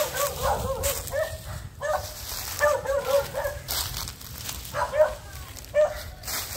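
A dog yapping in quick runs of short, high barks, several a second, with short pauses between the runs.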